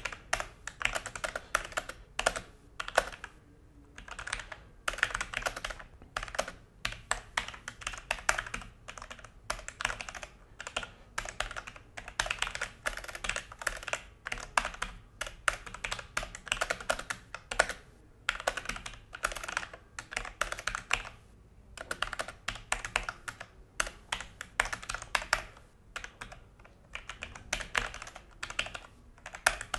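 Fast typing on a Logitech G413 mechanical keyboard: dense runs of key clicks broken by brief pauses.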